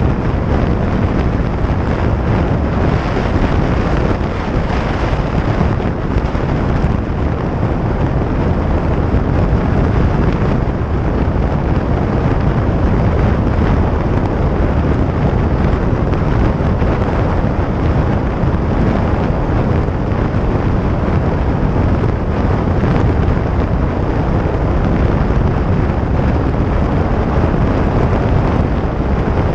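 Steady wind rushing over the microphone, mixed with the engine and road noise of a 2017 Harley-Davidson Iron 883 at highway speed. The bike runs on its 883 cc air-cooled V-twin.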